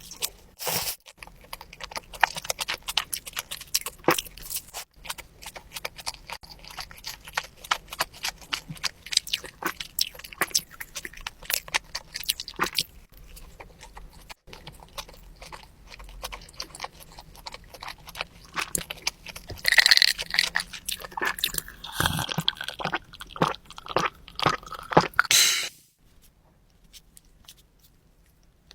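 Close-miked chewing of a burger: wet mouth clicks and soft crunches in an irregular stream, with a few louder bites, then a pause near the end.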